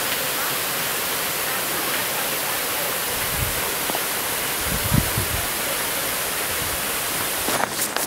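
Steady rushing of water at a mountain waterfall, an even hiss with no pauses. There are two low thumps on the microphone a little past the middle. The rushing cuts off abruptly shortly before the end.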